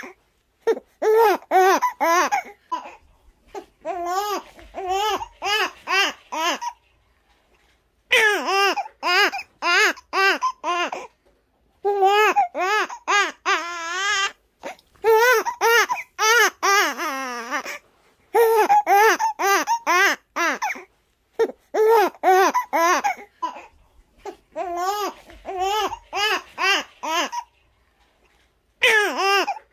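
Newborn baby crying from hunger: quick, rhythmic short wails, about four a second, in bouts of a few seconds broken by brief pauses.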